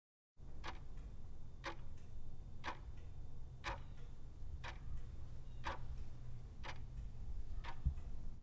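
Clock ticking, eight even ticks about one a second, over a steady low hum.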